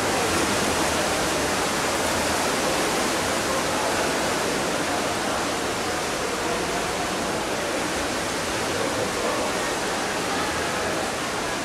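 Steady, even rushing noise of pool water picked up by a camera's microphone held underwater.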